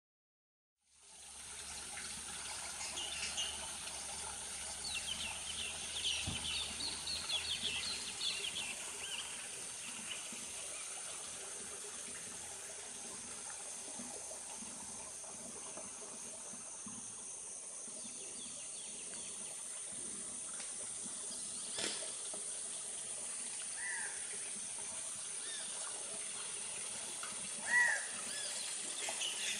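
Flowing water running steadily, with birds chirping, busiest in the first few seconds and then a few single calls near the end, over a steady high hiss. It starts about a second in, after a moment of silence.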